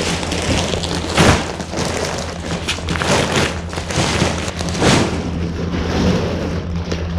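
Vehicle engine running with a steady low drone, broken by several short, loud rushes of noise about a second into the sound, twice around three seconds in, and again near five seconds.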